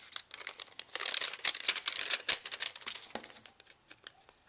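Paper liner of a roll of Zots adhesive dots crinkling and rustling as it is unrolled and handled, a dense patter of crackles that thins out toward the end.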